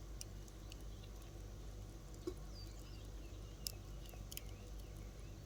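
Small birds chirping faintly in short curving calls, mixed with a few sharp clicks, over a steady low background hum.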